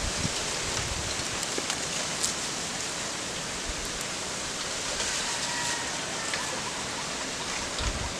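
Leafy plants rustling with small ticks and snaps as greens are picked by hand, over a steady outdoor hiss.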